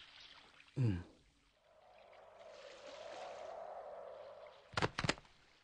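A soft rushing, water-like noise that swells up and fades away over about three seconds. A short vocal sound comes just before it and a brief sharper sound near the end.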